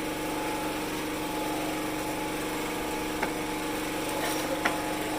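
Small engine running steadily, a constant even hum, with a couple of faint clicks near the end.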